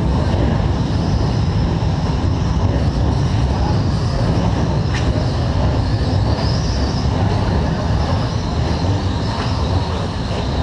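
Radio-controlled electric short course trucks with 17.5-turn brushless motors racing on an indoor dirt track: a steady low rumble with faint high motor whines rising and falling over it, and one click about five seconds in.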